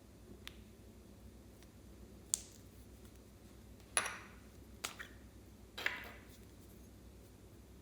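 Slime being handled by hand, giving about five scattered sharp pops and short crackles.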